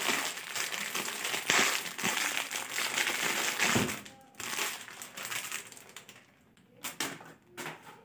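Clear plastic packet crinkling as it is handled and opened to take out a new two-pin power cord. The rustling is dense for about four seconds, then thins to a few scattered crackles.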